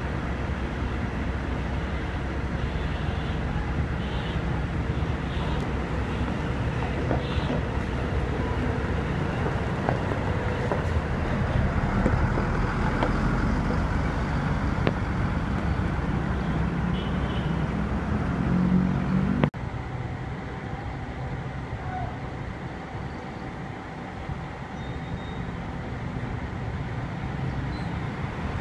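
Diesel bus engines running in a bus terminal yard: a steady, muffled rumble that builds toward two-thirds of the way through. It then cuts off abruptly to a quieter stretch of bus and traffic noise.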